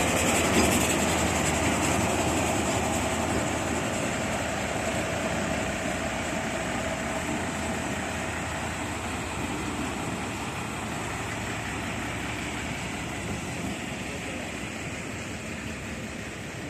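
Diesel locomotive engine running steadily, growing gradually fainter.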